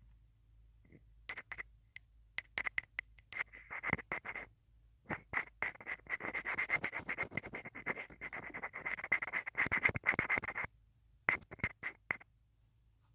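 Close-up scratching and clicking right on a smartphone's microphone, in scattered taps at first, then a dense crackly run that stops suddenly about ten and a half seconds in, followed by a few last clicks.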